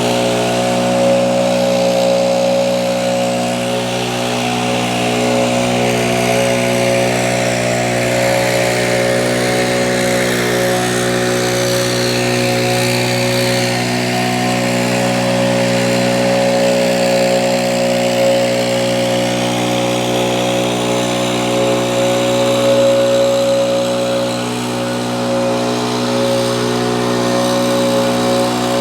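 Compact tractor's diesel engine running steadily at constant speed while it pulls a land plane to grade a gravel driveway.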